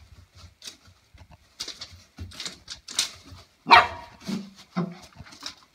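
Shih Tzu barking: one loud, sharp bark about two-thirds of the way in, then two shorter, lower barks. Crinkling of plastic sheeting under the dog's paws comes before them.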